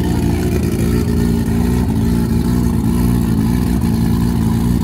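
A 4x4 off-road vehicle's engine running steadily at a constant speed.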